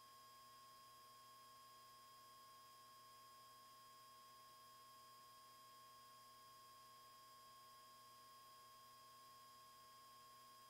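Near silence: only a faint, steady hum with a thin high tone.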